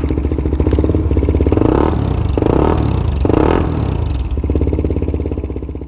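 CFMoto 300SR's single-cylinder engine, with an upgraded exhaust, idling and then revved in three quick blips about a second and a half in, before settling back to idle.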